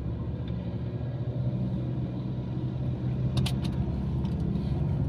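Steady low rumble of a car's engine and tyres heard from inside the cabin while driving, with a couple of short clicks about three and a half seconds in.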